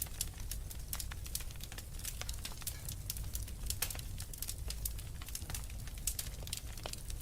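Fire crackling with frequent irregular sharp pops and snaps over a steady low rumble.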